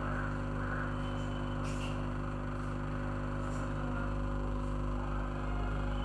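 Hot air rework station running steadily with a constant electrical hum, heating the PM8937 power-management IC to lift it off the phone's board.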